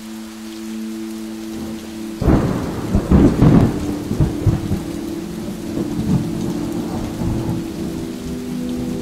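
Steady rain falling, with a sudden crack of thunder about two seconds in that rumbles loudly for a few seconds and then dies away.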